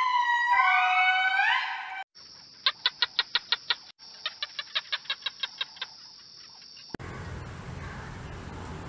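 Animal calls in quick succession, most likely birds. First comes a loud pitched call that steps up and down in pitch for about two seconds. Then two runs of rapid chirps over a high whistle. About seven seconds in, an abrupt change to a steady outdoor background with a thin high tone.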